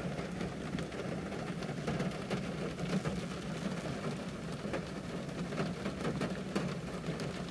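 Rain pattering on a car's roof and windows, heard from inside the car as many fine, irregular ticks over a steady low hum.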